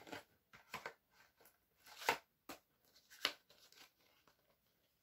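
A DVD case being handled: faint scattered rustles and short clicks, the loudest about two seconds in and again just after three seconds.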